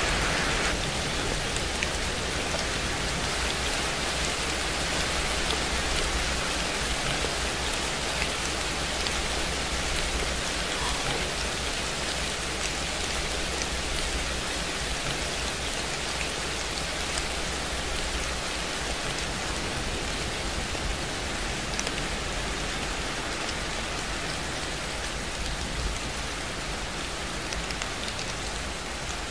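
Rain-sound track: a steady, even hiss of rain with faint scattered drop ticks, growing slowly a little quieter.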